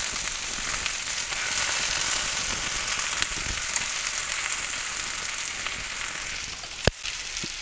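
Marinated chicken pieces sizzling in hot oil in a nonstick frying pan as metal tongs turn them, a steady hiss with one sharp click near the end.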